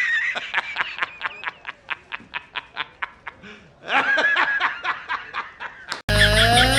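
High-pitched laughter: a rapid run of short giggles, about five a second and tailing off, then a second burst about four seconds in. It cuts off abruptly near the end as music starts.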